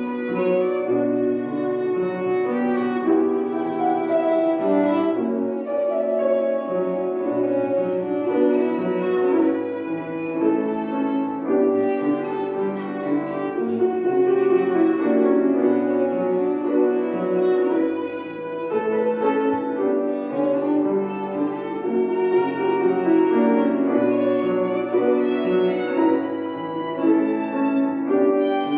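Violin playing a melody with piano accompaniment.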